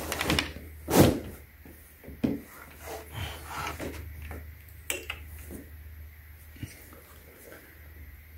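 Knocks, scrapes and cardboard rustling of a pole saw's telescoping metal-and-plastic shaft being pulled out of its long cardboard box, with a louder knock about a second in, over a steady low hum.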